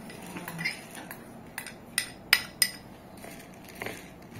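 A metal spoon clinking against dishes while scooping and mixing puffed rice and flattened rice on a plate: four sharp clinks in quick succession in the middle, and a fainter one near the end.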